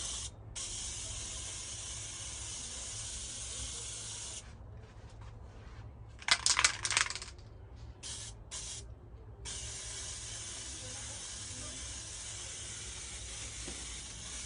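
Aerosol can of gold spray paint spraying in long steady hisses: one lasting about four seconds, then a few short bursts, then a long unbroken spray through the second half. In the pause, a brief clatter of sharp clicks is the loudest sound.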